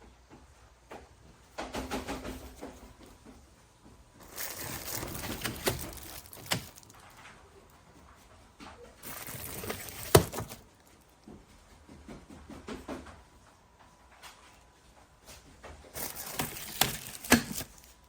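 Four bursts of rustling handling noise, each with sharp knocks and clicks; the loudest knock comes about ten seconds in.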